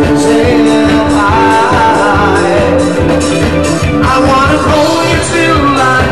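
Live upbeat pop song: a man singing into a microphone over loud backing music with a steady beat.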